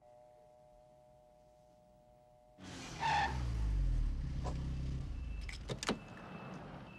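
A car pulls up about two and a half seconds in, its engine note falling as it slows and stops. A few sharp clicks follow as the driver's door is unlatched and swung open.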